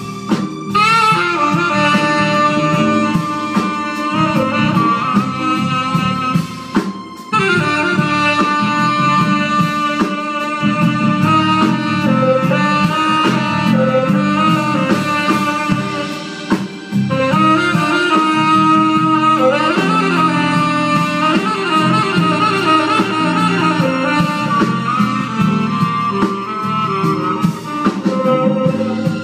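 Live jazz: a tenor saxophone plays long wavering melodic phrases over drums and a rhythm section, pausing briefly twice.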